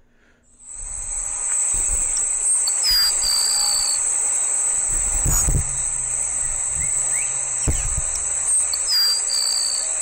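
Grassland Sparrow singing: two short, thin, high-pitched songs about six seconds apart, each a brief very high note followed by a lower held whistle. A steady, very high insect trill runs under them throughout.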